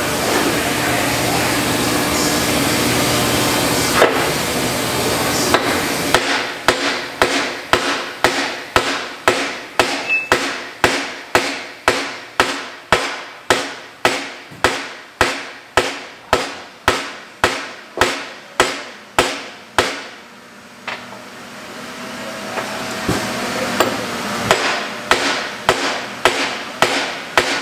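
Hand hammer blows driving a new arbor into place on a Pöttinger Terra Disc disc-harrow bearing hub, a long even run of about two sharp strikes a second, a pause of a few seconds, then another run near the end. A steady noise fills the first few seconds before the hammering starts.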